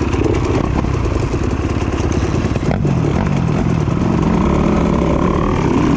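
Dirt bike engine running on a trail ride, the throttle rising and falling, with one sharp knock about halfway through.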